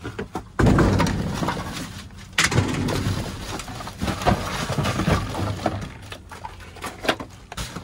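Trash being rummaged through by hand: cardboard boxes and plastic wrap rustling and scraping, with small hard items knocking together. It comes in two loud stretches, the first starting about half a second in and the second just after two seconds.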